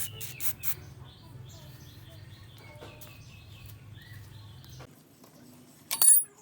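Faint bird chirps over a low steady hum, then a sharp, loud knock about six seconds in.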